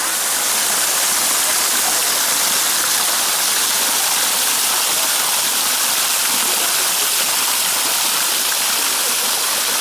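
Small waterfall pouring down a rock face and splashing into a shallow pool, heard close up as a steady rushing hiss.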